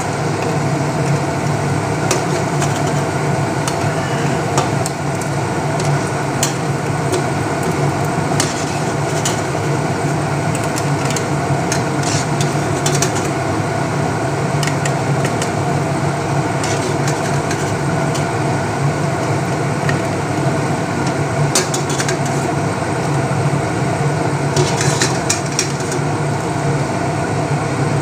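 Sabudana pakoras sizzling in hot oil in a kadai, with short metallic clinks of a wire skimmer against the pan as they are lifted out, over a steady hum.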